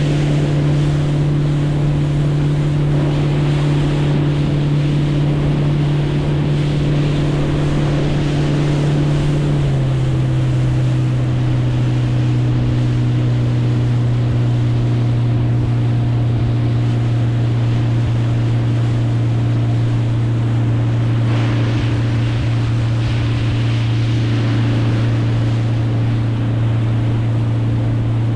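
Boat motor running steadily, with wind and water noise; its pitch drops a little about ten seconds in as it slows slightly.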